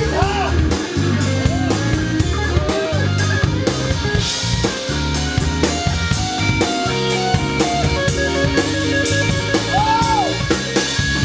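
Live blues band playing an instrumental passage: drum kit keeping a steady beat under a repeating electric bass line, with electric guitar and keyboard, and lead notes that bend up and down.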